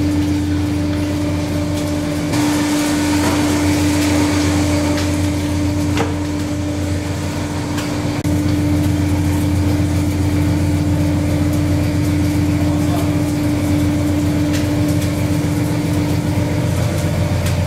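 Steady drone of a fishing trawler's engine and machinery heard below deck: a low hum with a steady whine over it that cuts off near the end. A couple of brief knocks from fish and crates being handled.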